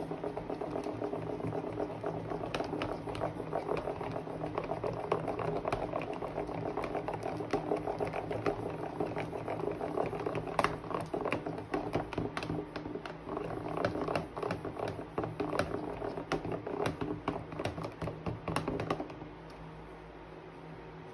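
A plastic utensil stirring a thick, sticky slime mixture in a plastic tub: a dense run of wet squelches and small clicks that stops about two seconds before the end.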